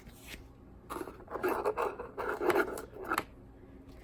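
Trading cards being handled: a scraping, rustling sound with a few sharp clicks, starting about a second in and lasting about two seconds.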